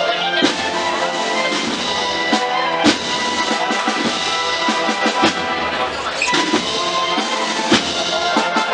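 Procession band playing a Holy Week processional march: brass and wind instruments carrying the tune over snare and bass drums.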